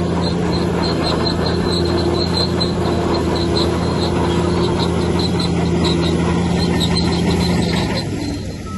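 Bulldozer's diesel engine running steadily under load, with its steel crawler tracks squeaking about four times a second. The engine eases off briefly near the end.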